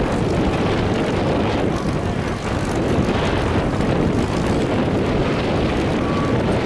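Engines of several demolition derby cars running together in a loud, steady rumble.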